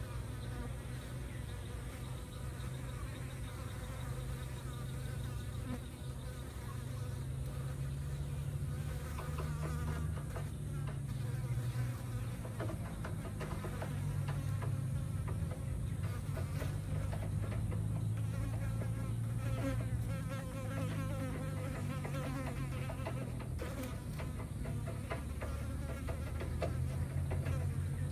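Flying insects buzzing: a continuous low drone that shifts up and down in pitch, with fainter higher wavering sounds above it.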